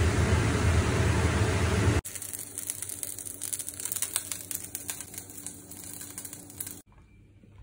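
A pot of tom yum soup bubbling on the hob, a loud steady rush that cuts off about two seconds in. Then an omelette frying in oil in a pan, a quieter crackle of small pops that stops near the end.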